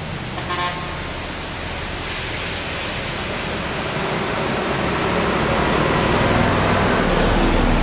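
Diesel engine of a Mitsubishi Fuso tanker truck approaching and growing steadily louder as it nears, its low rumble strongest near the end, over a constant hiss of noise.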